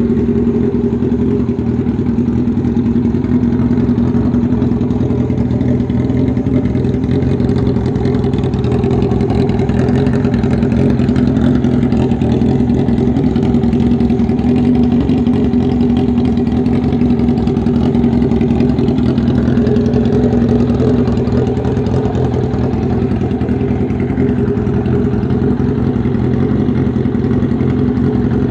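Honda CBX 750F's air-cooled inline-four engine idling steadily through a straight pipe with no muffler.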